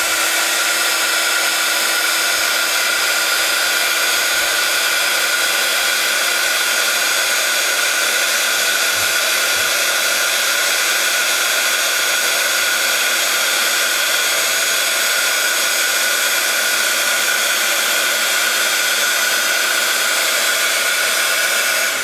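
Craft embossing heat gun blowing steadily, a loud even fan rush with a constant hum, melting gold embossing powder on stamped cardstock. It switches off abruptly at the very end.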